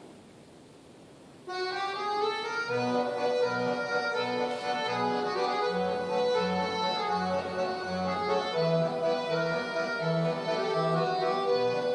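Instrumental music starts suddenly about a second and a half in: a held melody over a low, evenly repeating bass pattern.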